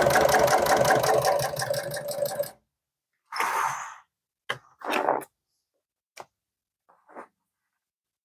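Industrial sewing machine stitching the welt seam of an upholstery cover, running fast with rapid, even needle strokes for about two and a half seconds, then stopping. A short rustle follows as the cover is pulled away from the machine, then a few light clicks.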